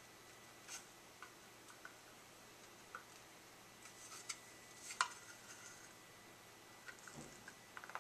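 Faint, scattered clicks and taps of small plastic statue pieces being handled and pushed into place, with the sharpest click about five seconds in.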